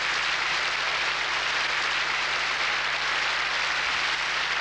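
Audience applauding, a steady, unbroken clapping.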